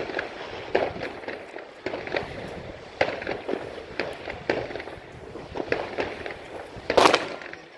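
Fireworks and firecrackers banging at irregular intervals, several sharp cracks a second at times, with the loudest bang about seven seconds in.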